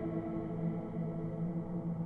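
Soundtrack music of sustained, droning tones, a low note held steady under fading higher ones.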